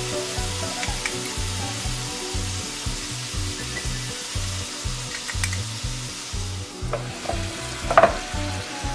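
Dried pollack coated in gochujang-based sauce sizzling steadily in a hot frying pan, with a few light spoon clicks as the sauce is spread and a sharper clink about eight seconds in.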